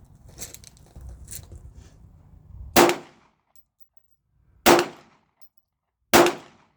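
Three pistol shots, spaced about two and a half, four and a half and six seconds in, each a sharp crack with a short ringing tail.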